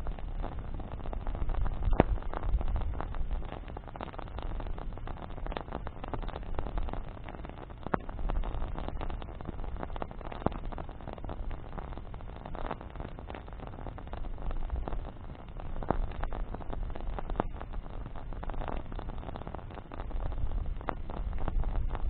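Wood bonfire burning, crackling with scattered sharp pops over a steady low rumble.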